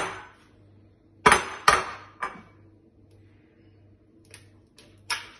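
An egg knocked against the rim of a ceramic bowl to crack it: three sharp taps close together about a second in, then a few fainter clicks near the end as the shell is pulled open over the bowl.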